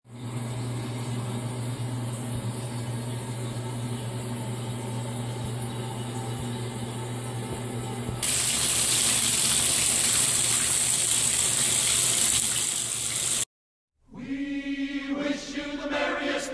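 Water running from a bathtub tap, a steady rush with a low hum under it, turning much louder and hissier about eight seconds in as the flow opens up. It cuts off abruptly near the end, and a few seconds of voices follow.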